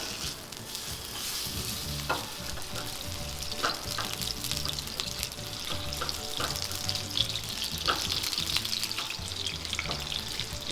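Chicken fat sizzling and crackling in a hot pan, with a few short clicks of a utensil stirring it.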